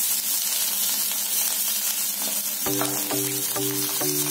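Grated spiny gourd sizzling in hot oil in a kadai as it is tipped in and stirred with a wooden spatula: a steady frying hiss.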